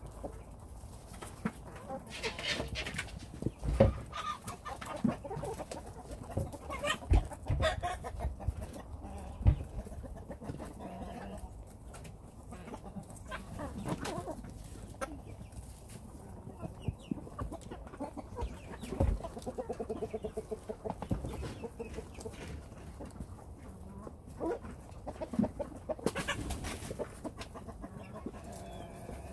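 Hens clucking while feeding among a crowd of rabbits, with scattered sharp taps and rustles from pecking and nibbling at the feed.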